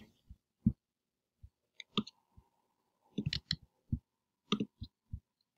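Faint, scattered clicks of a computer mouse and keyboard as a line of code is selected and copied, with a quick run of clicks a little past halfway and another near the end.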